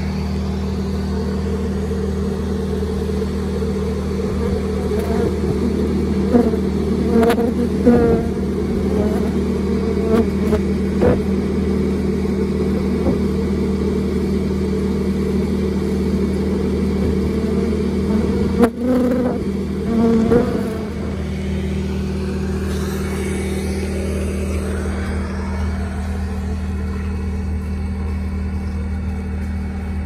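Feral honey bees buzzing at the entrance of their nest in a dirt bank: a loud, steady hum. A few short clicks and knocks come through it about six to eight seconds in, and again around twenty seconds.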